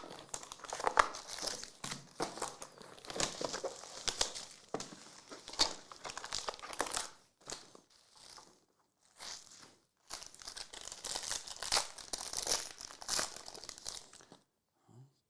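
Plastic wrappers of football trading card packs being torn open and crumpled by hand, an irregular crinkling and ripping that stops near the end.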